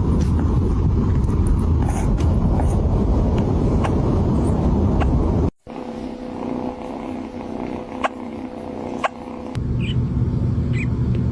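Kitten hiccupping: two sharp little clicks about a second apart, over a loud low rumble that fills the rest of the clip.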